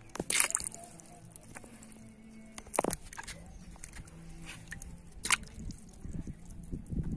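Small fish picked from a cast net and dropped one at a time into a bucket of water: three sharp wet slaps about two and a half seconds apart, with water sloshing in the bucket near the end.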